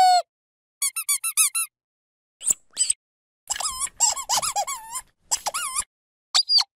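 Dog squeaky toy squeezed repeatedly: runs of short squeaks, each bending up and down in pitch, with silent gaps between the runs and a longer, busier run of squeezes in the middle.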